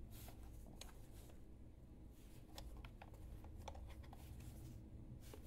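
Faint, scattered small clicks and taps from hands handling and turning over a plastic handheld digital multimeter, over a steady low hum.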